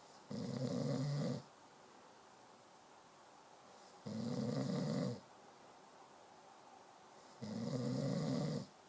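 Snoring: three loud snores about three and a half seconds apart, each lasting about a second.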